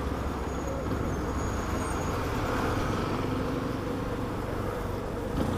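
Yamaha Ténéré motorcycle riding slowly between lanes of cars, its engine running at a steady low speed under road and traffic noise.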